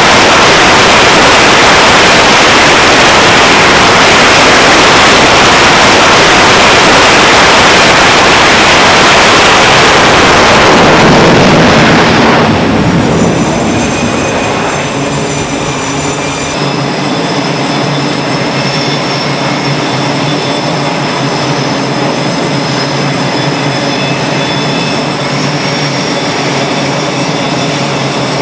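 F/A-18 jet engines on a carrier flight deck. They give a loud, even roar at high power for about the first twelve seconds, then drop to a lower steady run with a high-pitched turbine whine.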